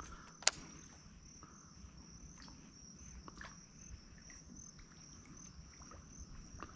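Insects trilling steadily in one high, unbroken pitch. A single sharp click cuts in about half a second in, and a few faint ticks follow.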